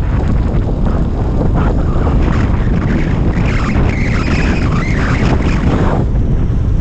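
Loud wind buffeting a helmet-mounted microphone on a fast downhill bicycle run, mixed with the hiss of Kenda K-Rad tyres rolling on wet asphalt.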